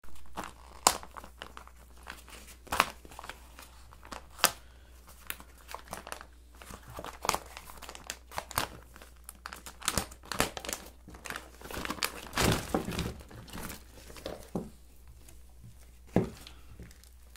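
Clear plastic packaging bag crinkling and crackling as it is handled and torn open, with sharp crackles every second or two and a longer, louder rustle of tearing about twelve seconds in. A sharp knock near the end as the plastic toy animals spill out.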